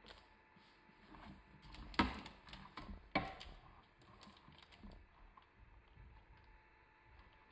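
A spatula spreading thick cake batter across a parchment-lined metal baking tray: faint scraping and small clicks, with two louder knocks about two and three seconds in.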